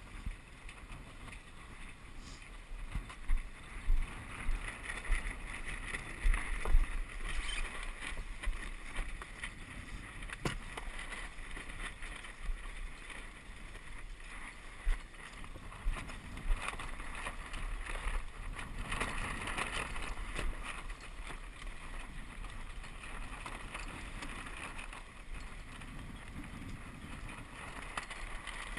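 Water splashing and lapping against the hull of a Walker Bay 10 sailing dinghy under way, with wind gusting across the microphone and a few knocks.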